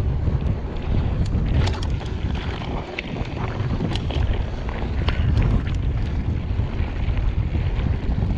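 Wind buffeting the microphone while riding a mountain bike, a loud steady rumble with scattered sharp clicks through it. It eases briefly about three seconds in.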